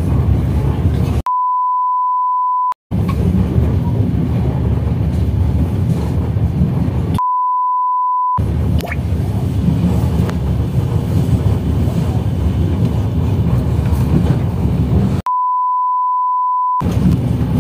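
Three edited-in bleep tones, each a steady beep of about a second and a half that blanks out all other sound, come about a second in, about seven seconds in and near the end. Between them is the steady low rumble of the train carriage.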